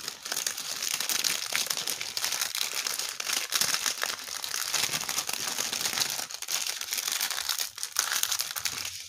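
Clear plastic zip-lock bags crinkling and rustling continuously as they are handled and something is packed back into one, a dense crackle of small clicks that stops just before the end.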